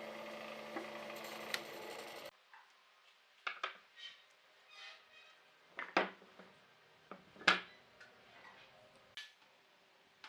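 A steady workshop machine hum that cuts off suddenly about two seconds in, then scattered light knocks and metallic clinks of tools being handled, the sharpest two near the middle.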